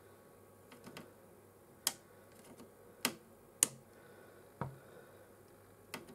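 Sharp, irregular clicks and snaps of small side-cutting snips cutting electrolytic capacitor cans off a circuit board, about five in all, the loudest about three and a half seconds in.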